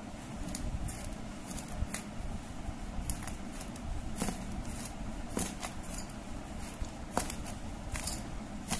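A hand mixing semolina and flours with curd in a stainless steel bowl: dry rustling and scraping, with scattered sharp clicks.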